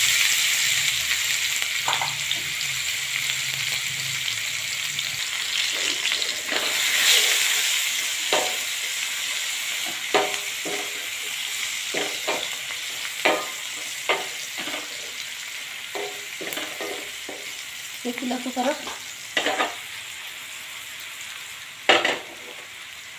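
Chopped onions sizzling in hot oil, the sizzle loudest at first and slowly dying down as they fry. Short scrapes and knocks of stirring against the pan come often, mostly in the second half.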